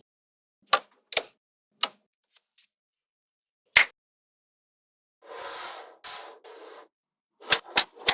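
Small neodymium magnetic balls snapping together with sharp clicks, four spaced clicks in the first four seconds, then a rattling, shuffling stretch of balls moving against each other, and three quick clicks in a row near the end.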